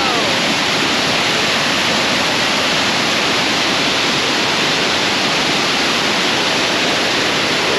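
Waterfall running high after heavy rain: a loud, steady rush of falling water, heard close up from the viewing platform within its spray.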